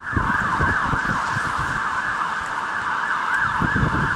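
Emergency-vehicle siren sounding in quick, repeated rising and falling sweeps. It cuts in suddenly, with a low rumble underneath.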